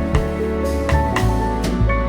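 Background music with a drum beat and sustained instrumental notes.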